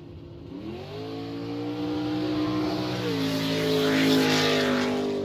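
Engine revving sound effect: the pitch climbs about half a second in, holds steady, then drops to a new note about three seconds in. A rushing whoosh swells to a peak near four seconds, and the sound eases off near the end.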